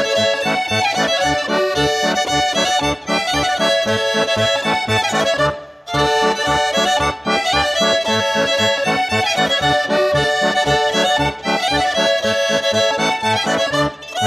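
Accordion and fiddle playing a lively traditional Occitan dance tune. The accordion's bass-and-chord accompaniment keeps a steady, quick beat under the melody, with a brief break about five and a half seconds in.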